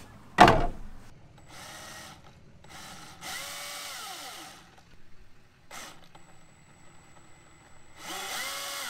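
Milwaukee 2727-20 M18 FUEL cordless brushless chainsaw run in several short bursts with the trigger feathered, the motor and chain spinning up and winding down at varying speeds. A sharp knock comes about half a second in.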